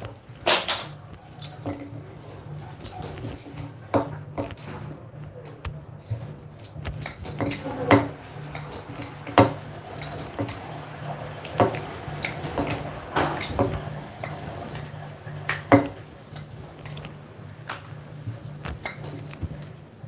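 Wooden rolling pin rolling and knocking on a stone countertop as puri dough is rolled out, with metal bangles on the wrists jingling in irregular clicks and rattles. A steady low hum runs underneath.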